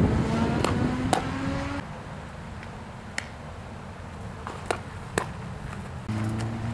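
A vehicle engine accelerating with its pitch rising, fading out about two seconds in. A few sharp snaps follow. Another engine comes in near the end.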